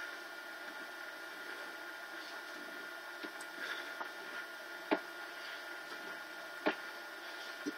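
Quiet room tone: a steady hiss with a faint steady high whine, broken by four short sharp clicks spread through the second half.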